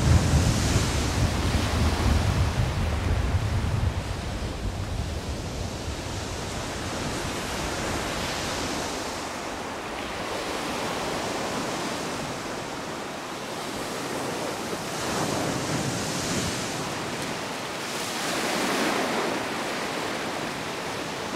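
Sea waves breaking and washing up a sandy beach, rising and falling in swells every few seconds. A low rumble of wind on the microphone is heard through the first few seconds.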